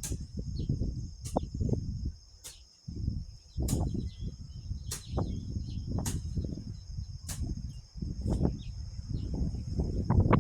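Gusty wind buffeting the phone's microphone as a rumble that swells and drops, over a steady high insect trill, with sharp ticks about once a second.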